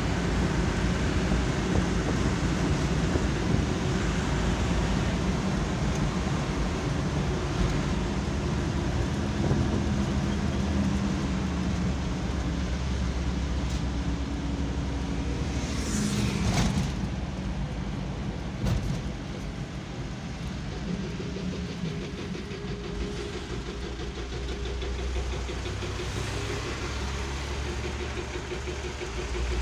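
Car engine and road noise heard from inside the cabin while driving, with a couple of brief knocks around the middle. The engine note falls and the sound gets quieter as the car slows, settling into a low idle near the end as it stops at a red light.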